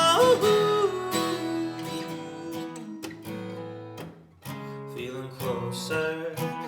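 Acoustic guitar strumming chords in an instrumental break of a folk-pop song, with the last sung note of the chorus trailing off about a second in.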